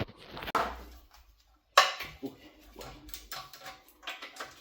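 Metal hand tools clinking and knocking while the bolts holding a car's rear subframe are worked on, with one sharp clank a little under two seconds in.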